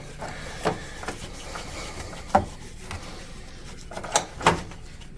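A few short, sharp clicks and knocks from small parts and a bottle being handled on a workbench, the loudest about halfway through.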